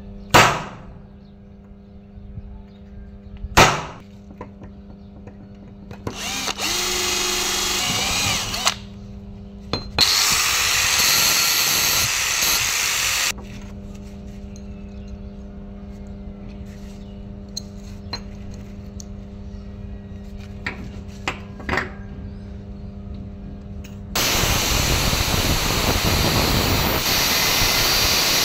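Handheld angle grinder cutting metal in three runs: a short one about six seconds in, another about ten seconds in, and a longer one from about twenty-four seconds on. Two sharp metal knocks come near the start, and a steady low hum is heard between the runs.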